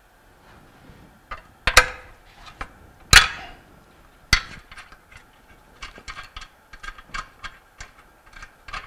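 A wrench loosening steel nuts and bolts on a pump's steel base frame, metal against metal. There are three sharp, ringing clinks in the first half, the loudest about three seconds in, then a run of lighter, quick clicks near the end.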